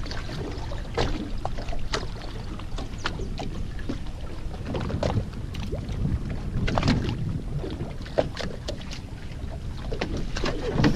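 Steady wind and water noise on a small fishing boat, with irregular knocks and clicks scattered through it.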